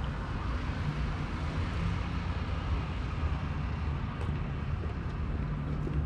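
Steady low rumble of distant city traffic, with no single event standing out.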